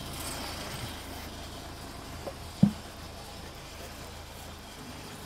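Steady low engine hum from a track-mounted drilling rig running, with one short dull knock about two and a half seconds in.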